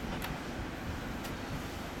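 Steady low rumble of outdoor background noise, with faint wind on the microphone.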